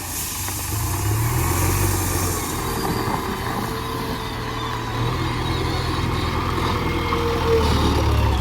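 Diesel engine of a JCB 3DX backhoe loader running steadily at work, getting a little louder about five seconds in.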